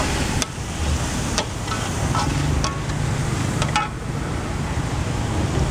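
Food sizzling in oil in a hot wok, stirred with a metal spatula that scrapes and clinks against the pan about four times.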